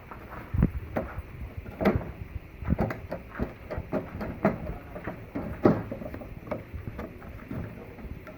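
Foot-operated hand-washing machine being worked: irregular knocks and clunks, roughly one or two a second.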